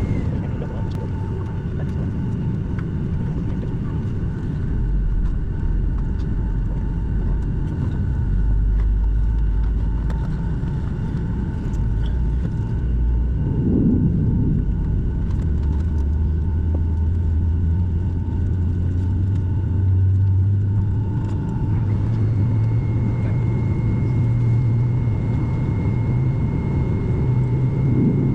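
Boeing 757-200 cabin noise on the ground: a steady low rumble with faint steady whines above it. About halfway through, a deep hum sets in and slowly climbs in pitch as a jet engine spools up.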